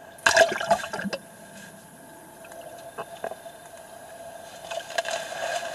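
Splashing and sloshing in shallow water, loudest in a sudden burst near the start, then quieter with a few sharp knocks. Near the end a skimboard slides across the shallows, throwing spray.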